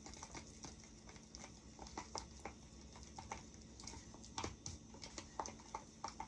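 Spoon stirring a thick flour-and-water paste in a small bowl, with irregular light clicks and taps of the spoon against the bowl, a few a second.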